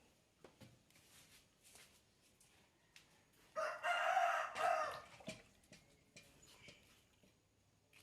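A rooster crowing once near the middle, a call of about a second and a half that breaks briefly before its last part. Faint light knocks and clicks come before and after it.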